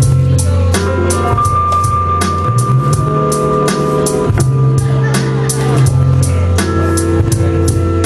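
Live electronic beat played from a laptop and pad controller: a steady drum-machine groove of sharp, regular hits over sustained bass notes that change every couple of seconds, with a held synth tone through the middle.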